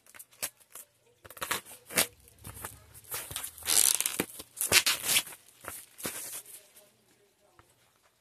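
Clear plastic shrink-wrap being torn and peeled off a cardboard box, crackling and crinkling in a quick run of tears, loudest around the middle and trailing off near the end.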